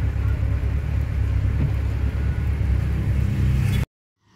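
Car in heavy rain heard from inside the cabin: a steady low rumble with the hiss of rain on the windshield and body. It cuts off suddenly near the end.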